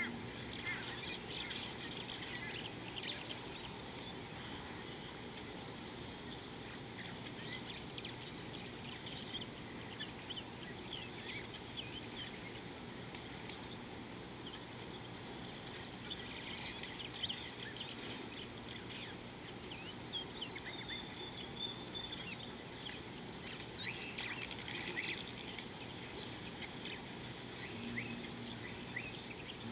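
Wild birds chirping and calling in many short, overlapping notes over a steady outdoor background, with one longer held note about two-thirds of the way through.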